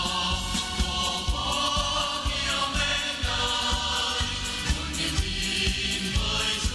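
Music: a group of voices singing a Vietnamese patriotic song over a backing track with a steady beat.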